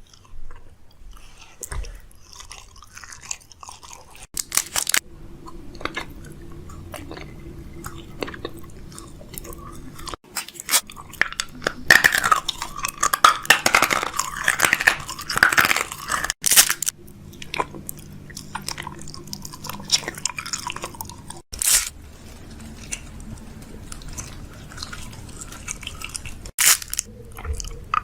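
Crunchy chewing and biting: many short crackling crunches, busiest in the middle, over a faint steady hum, broken off sharply several times.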